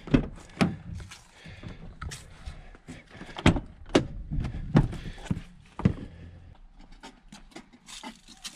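Pickup truck's rear cab door being unlatched by its outside handle and pulled open, with a sharp double click of the latch right at the start. Several separate knocks and thumps follow over the next few seconds.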